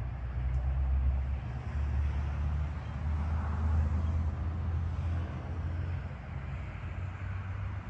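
Steady low outdoor rumble that swells from about one and a half to five and a half seconds in, with a faint hiss rising in the middle and again near the end.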